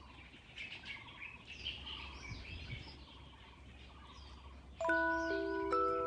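Birds chirping and twittering. Near the end, chime-like ringing notes of a slow melody come in, louder than the birds.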